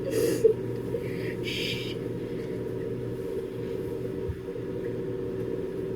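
Microwave oven running with a steady hum, heating a bar of soap. Two brief soft hisses in the first two seconds.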